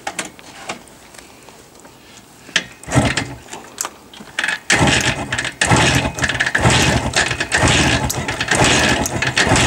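Jawa twin-cylinder two-stroke motorcycle engine being started: a few knocks, then it catches about five seconds in and runs loud and uneven. It is firing on one cylinder only, on old spark plugs, after standing unused.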